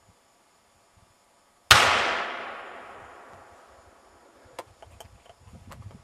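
A single rifle shot from about 150 m away, just under two seconds in, its report echoing through the forest and fading over a couple of seconds. A few faint clicks follow.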